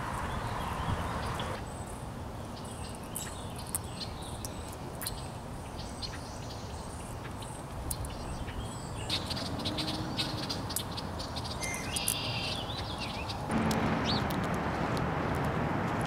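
Wild birds chirping: many short, sharp high calls scattered through, with a brief patterned call a little before the end, over a steady low rumble of outdoor background noise. The background changes abruptly twice, growing louder near the end.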